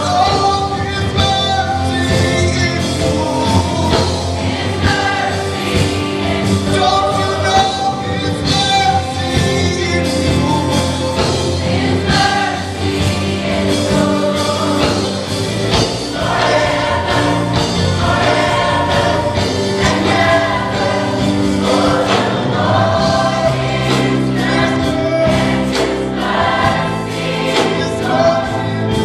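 Large gospel choir singing with a live band, drums and guitars keeping a steady beat.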